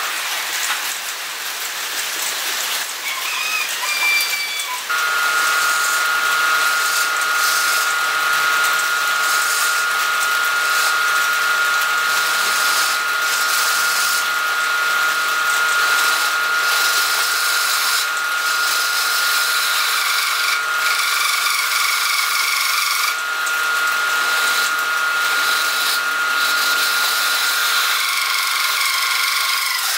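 Wood lathe spinning a small wooden disc while a hand-held chisel cuts its face: a continuous scraping hiss of the cut, with a steady high whine setting in about five seconds in.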